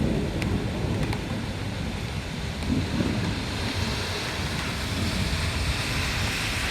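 Heavy thunderstorm downpour with gusting wind and a low rumble underneath; two sharp taps about half a second and a second in.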